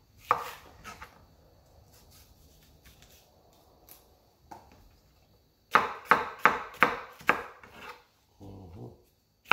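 Chef's knife slicing a red bell pepper on a wooden cutting board: one knock of the blade on the board just after the start, light scrapes, then a quick run of chops, about three a second, in the second half.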